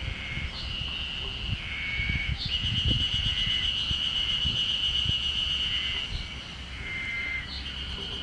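A chorus of Ezo spring cicadas (Terpnosia nigricosta) calling, several overlapping long shrill phrases that start and stop at different times. A low irregular rumble lies underneath.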